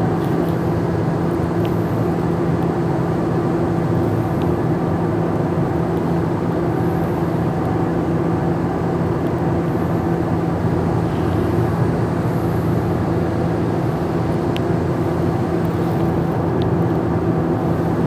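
Cabin noise inside a Siemens S200 light rail car: a steady running rumble with a low, even hum.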